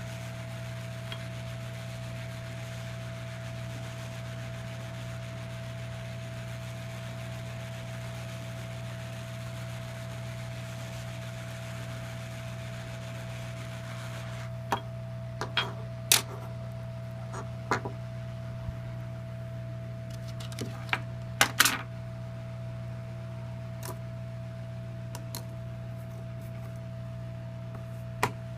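Steady electrical hum with hiss. From about halfway, a scatter of sharp small clicks and taps, typical of small tools and a phone's plastic and metal parts being handled during a repair.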